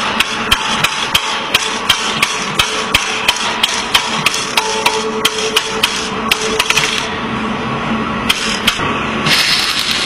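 Quick run of hammer blows, about four a second, that stops about seven seconds in and is followed by a couple more strikes; a rushing noise starts about nine seconds in.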